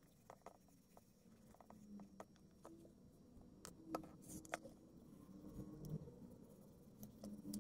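Faint rubbing and scattered light ticks of gloved fingers working balm into the leather case of a vintage tape measure, with a couple of sharper clicks about halfway through.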